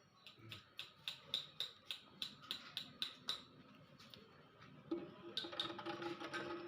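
Regular metallic clicking, about three or four sharp ringing clicks a second for around three seconds, from hand tools being worked on metal. About five seconds in, a short steady low tone starts up under more clicks.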